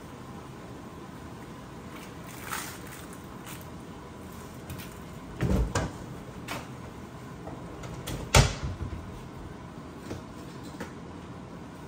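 Kitchen cabinet doors being opened and shut: scattered knocks and clunks, a cluster of them about halfway through and the loudest one a couple of seconds later.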